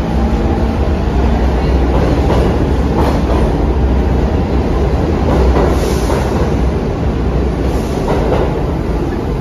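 New York City subway A train running past the station platform: a loud, steady rumble with a clatter of wheels over the rail joints and a few sharp clacks.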